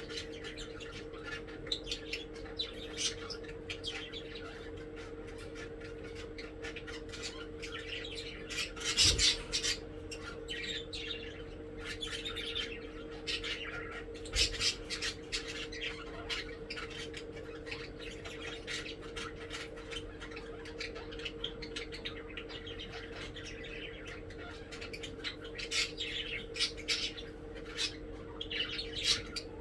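Pet budgies (budgerigars) chattering: a continuous run of short chirps, squawks and clicks, with a louder burst of squawking about nine seconds in. A steady low hum runs underneath.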